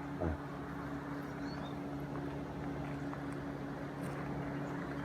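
Motorboat engine running steadily out on the lake, heard as a steady low hum, with a brief low thump just after the start.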